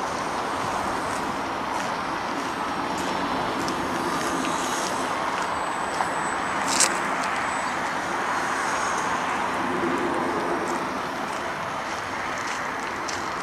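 Hobby King Slow Stick electric model airplane's motor and propeller buzzing steadily overhead, the hum wavering slightly in pitch as it flies. A sharp click about seven seconds in.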